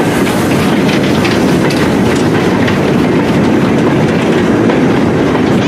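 Goods train of short four-wheeled steel mineral wagons rolling past at close range: a steady rumble of wheels on rail with a rapid irregular clatter of small clicks over the rail joints.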